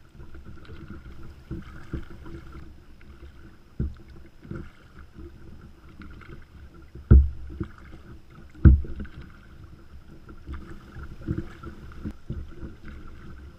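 Paddle strokes and water splashing and lapping against a 10-foot Viper kayak's hull as it is paddled into the wind, with a few low thumps, the two loudest about seven and eight and a half seconds in. Wind rumbles on the microphone.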